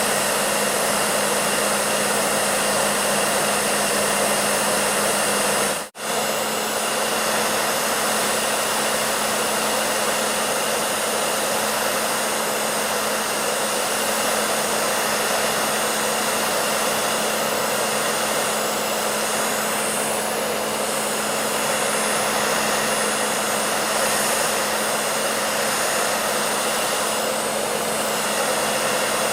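Hair dryer running steadily: a loud, even rush of blown air over a steady motor hum. It cuts out for an instant about six seconds in, then carries on unchanged.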